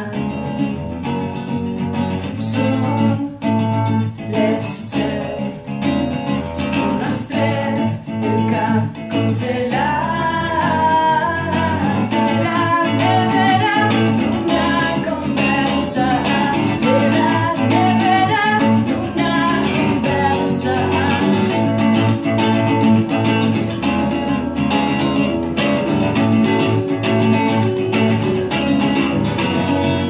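A song played live on two electric guitars with a clean tone through small amplifiers, and a woman singing over them from about ten seconds in.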